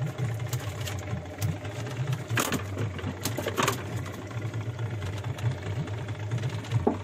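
Small fishing boat's outboard motor idling with a steady low pulsing hum, with a few sharp knocks about halfway through.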